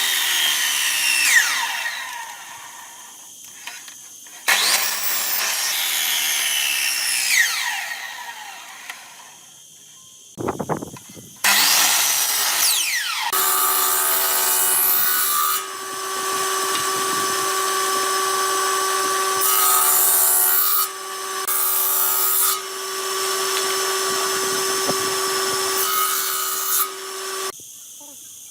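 A power tool working wood in several bursts. Its whine slides down in pitch as it slows between cuts, then it runs steadily for about fourteen seconds before stopping near the end.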